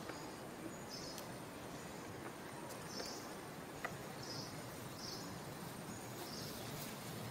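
Steady outdoor background noise with short, faint high-pitched chirps repeating about once a second, and a couple of light clicks.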